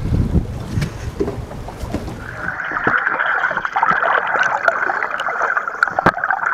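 Wind on the microphone and sea water washing at a boat's side. About two seconds in, it cuts to underwater camera audio: a muffled fizzing hiss of water with scattered clicks and pops.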